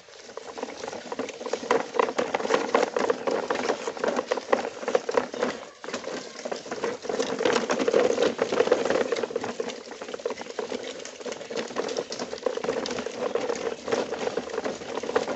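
Plastic toy dump trucks rolling over gravelly dirt, their wheels giving a dense, continuous crunching and clicking on the grit and small stones. The sound dips briefly about six seconds in.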